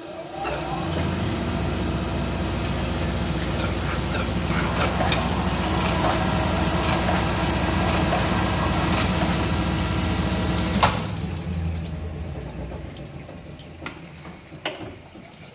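Sunnen cylinder honing machine running final finishing strokes with fine stones in an oil-flooded engine bore: a steady grinding hum with the wash of honing oil and a light tick about once a second. It starts about half a second in and shuts off with a clunk about eleven seconds in, the oil sound trailing away afterwards.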